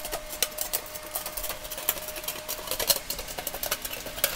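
Tin snips cutting out a round hole in a grill's porcelain-coated sheet-steel bottom: an irregular run of sharp metal clicks, several a second. A faint steady hum runs underneath.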